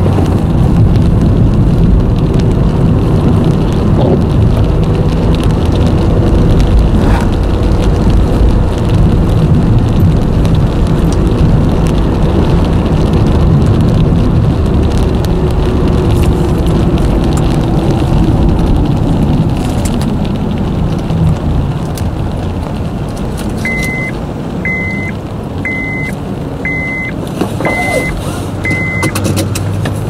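Car cabin sound while driving on wet streets in rain: a steady low engine and tyre rumble with scattered light taps. Near the end, a short electronic beep repeats six times, about once a second.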